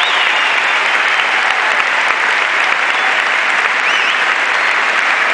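Large audience applauding steadily, with a couple of short whistles near the start and about four seconds in.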